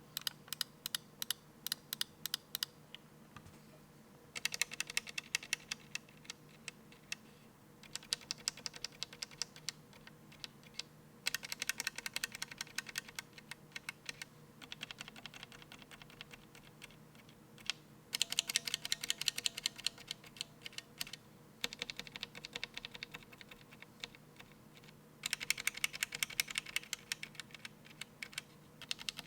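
Mechanical keyboard being typed on, with linear switches in a Think6.5 hot-swap case with a polycarbonate plate. Rapid clacks come in about eight bursts of a few seconds each, separated by short pauses.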